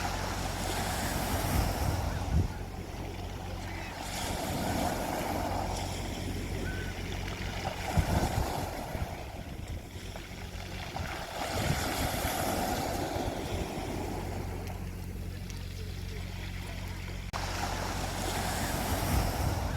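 Sea waves washing onto a beach, each surge of surf swelling and fading every few seconds, over a steady low rumble.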